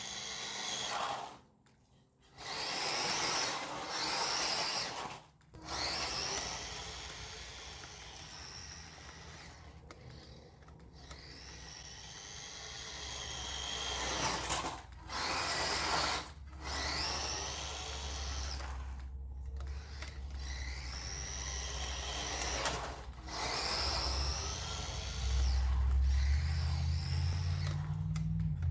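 Electric motor and gear drive of a 1:18 scale 4WD high-speed RC truck whining in repeated bursts of throttle, the pitch climbing as it speeds up and falling as it slows, with brief cut-offs when the throttle is let go. A low rumble underneath grows louder toward the end.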